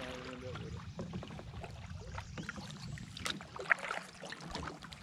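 Kayak paddles dipping and splashing in calm swamp water, with small irregular drips and clicks, and one sharp knock about three and a half seconds in.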